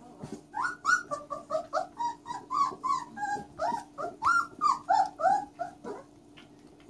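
Catahoula Leopard Dog puppies yipping and squealing in play, a rapid string of short high calls, about four a second, that stops about a second before the end.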